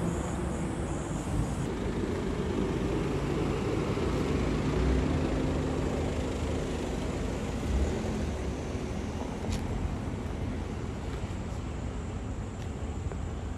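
A car engine running at low speed with a steady low rumble, its pitch drifting slowly.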